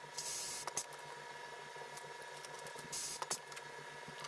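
Pneumatic rivet squeezer setting rivets in the aluminium rudder spar: a short hiss of air at the start and another about three seconds in, with light metallic clicks between.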